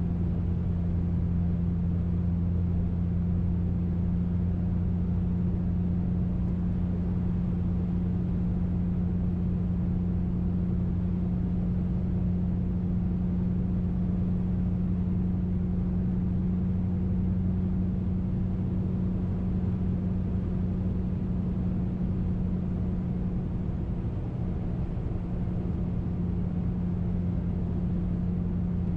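2005 Mercury Grand Marquis's 4.6-litre V8 with a muffler delete (catalytic converters and an H-pipe only), heard from inside the cabin while cruising: a steady low exhaust drone over road noise.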